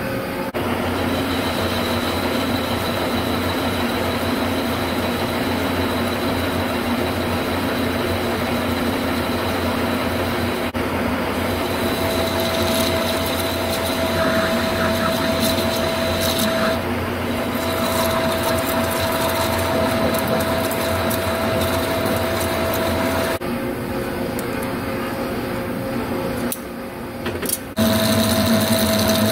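Metal lathe turning a steel workpiece, with a steady machine hum and high whine and the hiss of an insert tool cutting. The sound changes abruptly several times, and it is louder near the end.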